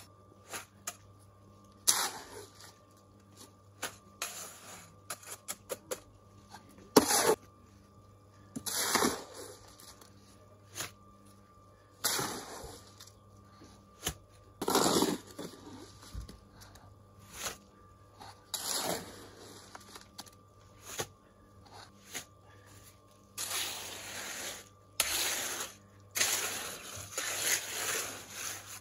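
Damp concrete mix being scooped and spread into a timber step form with a small shovel. A series of scrapes about every two to three seconds, with small clicks and knocks between them. The scraping grows longer and denser near the end.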